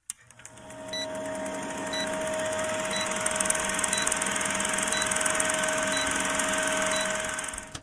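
Old-film countdown-leader sound effect: a steady film projector whir with hiss and crackle, and a short high blip on each second. It fades in over the first second and cuts off suddenly at the end.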